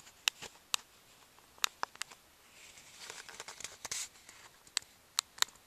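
Scattered sharp clicks, about a dozen at irregular intervals, with a soft rustle in the middle: small handling noises close to the microphone.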